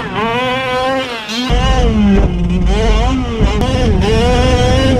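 Two-stroke petrol engine of a large-scale Losi 5IVE-T 2.0 RC truck, revving up and easing off again and again under the throttle as the truck is driven. A heavy low rumble joins about one and a half seconds in.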